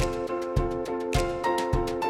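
Background music with a steady beat and plucked guitar-like notes.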